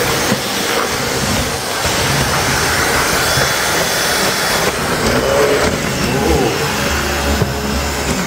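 Miele Triflex HX2 cordless stick vacuum running steadily as it is pushed over a floor, on its minimum power setting. It is switched off right at the end and the sound dies away over about a second.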